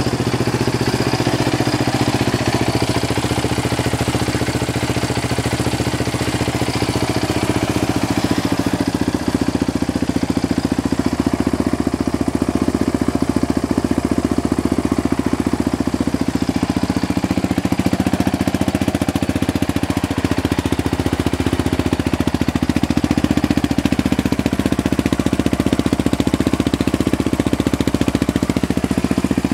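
Yamaha Raptor 700R's fuel-injected single-cylinder four-stroke engine idling steadily through a GYTR aftermarket exhaust.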